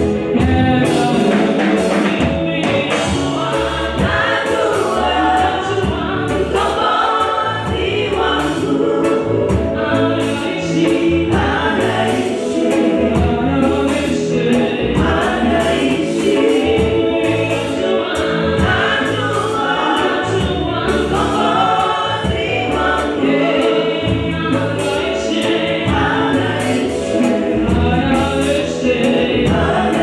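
Church gospel choir singing through microphones, led by a woman soloist on a handheld mic, over amplified instrumental backing with low bass notes and a steady beat.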